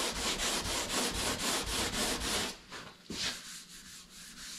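Sanding block with sandpaper rubbed back and forth by hand over the primed front edge of a truck door, about four strokes a second: block sanding the primer over a repaired area. The strokes stop about halfway through, followed by one short rub a little later.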